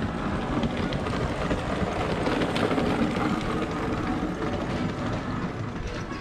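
Cass Scenic Railroad train moving along the track: a steady rumble with clattering and clanking of the cars.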